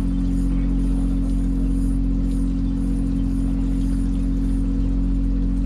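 Fishing boat's engine running steadily: a constant low hum made of several steady tones.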